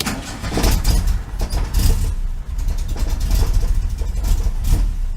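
1973 VW Super Beetle's air-cooled flat-four engine starting up and running, a steady low rumble with rapid exhaust pulses. The heater box to exhaust header gasket has just been replaced.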